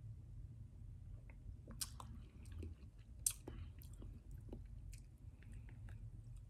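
Faint mouth sounds of a person tasting a michelada: chewing and lip smacks as she works at the sticky tamarind-and-Tajín candy rim of the cup, with two sharper clicks about two and three seconds in.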